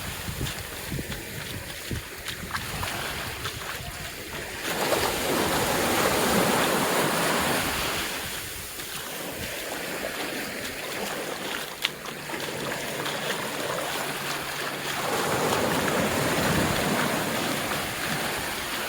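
Ocean surf: waves break and wash up the sand in two louder surges, about five seconds in and again about fifteen seconds in, over a steady wash of sea noise.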